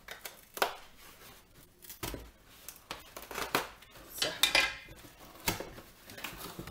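Scissors cutting packing tape along the edge of a cardboard box, then cardboard scraping and rustling as the box lid is lifted open: an irregular string of scrapes and clicks, busiest about four to five seconds in.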